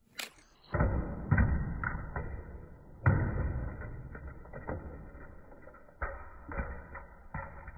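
Hot Wheels die-cast car crashing into water beads on a plastic track: a quick whoosh, then a series of dull thuds and knocks, about six, the loudest about a second in and about three seconds in, each fading away.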